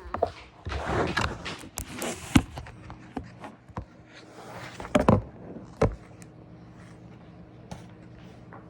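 Rustling and irregular sharp knocks of a picture book being handled and its pages turned, busiest in the first few seconds and again about five seconds in, over a faint steady hum.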